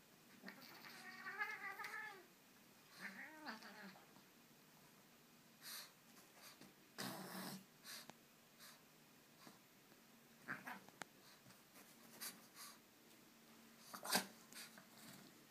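A cat meowing twice: a longer, wavering call about a second in and a short one shortly after. Then faint scattered rustles and taps from the animals scuffling on bedding, with one sharper tap near the end.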